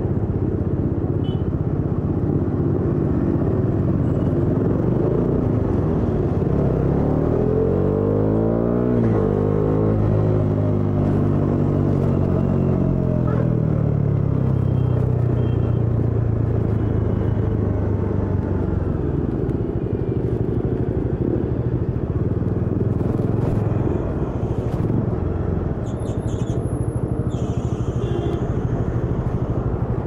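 Motorcycle engine running under way on the road, heard from on board. The revs climb about eight seconds in, then fall away slowly over the next several seconds, over a steady low rumble.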